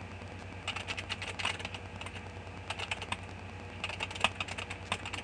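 Computer keyboard typing: short quick runs of key clicks, in about three bursts, as numbers are keyed in.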